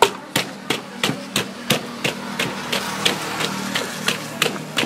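Wooden pestle pounding green papaya salad (som tam) in a deep mortar: a steady beat of about three knocks a second as the shredded papaya and tomato are bruised and mixed. A steady low hum runs underneath.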